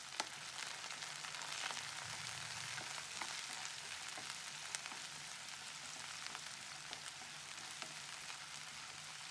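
Sliced onions and curry leaves frying in hot oil in a nonstick kadai: a faint, steady sizzle as they are stirred with a silicone spatula, with a few light taps of the spatula against the pan.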